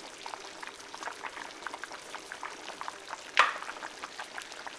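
Large saucepan of chicken soup bubbling on the hob, a steady crackle of many small pops, with one sharper click about three and a half seconds in.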